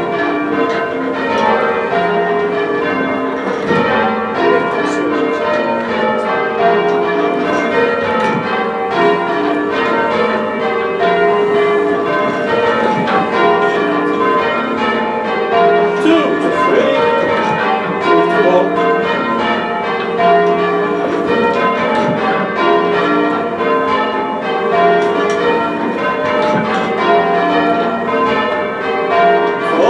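A ring of six church bells rung full circle, the bells striking one after another in a continuous, even sequence of changes.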